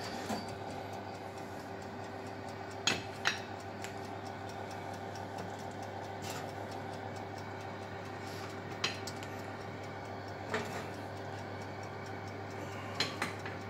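Metal tongs picking small aluminium egg moulds off an oven shelf: several short, sharp clicks and clinks of metal on metal, over a steady hum.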